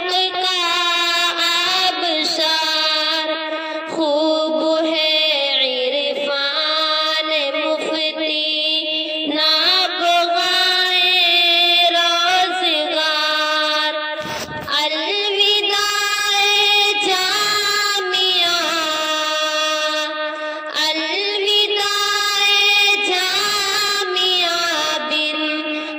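A female voice singing a slow farewell tarana (an Urdu devotional song), with long held notes that bend and ornament in pitch.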